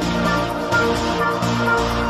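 Electronic dance music with a steady beat and a held bass line.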